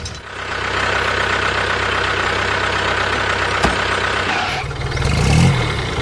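Small motor of a DIY mini tractor running with a fast, steady rattle, with one sharp click partway through; the sound changes and grows louder near the end.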